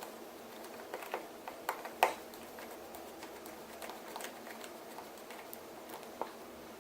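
Small, sharp clicks and taps of tools and small parts against a smartphone's frame as it is reassembled. The loudest tap comes about two seconds in, with scattered lighter clicks after it.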